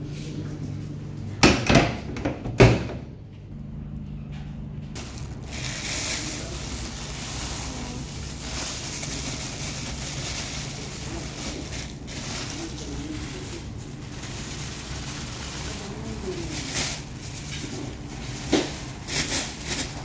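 Front-loading washing machine door slammed shut, two loud knocks about a second apart as it latches. Then washing powder poured from a plastic bag into the machine's detergent drawer: a steady gritty hiss with the bag rustling, and a few sharper knocks near the end.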